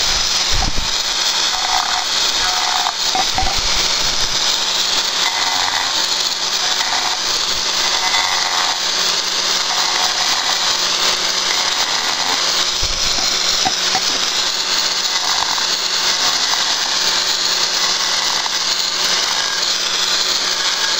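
Small angle grinder with a segmented diamond disc running at full speed while it scores crossing cuts into the back of a porcelain tile. The motor keeps up a steady high whine, with short rasping grinds every second or two as the disc bites into the tile.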